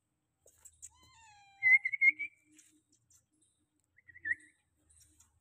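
Cat meowing a few times in high, wavering calls, the loudest about two seconds in.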